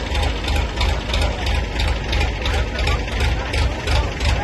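A truck's engine runs steadily, with a deep low rumble and a regular pulsing of about two beats a second.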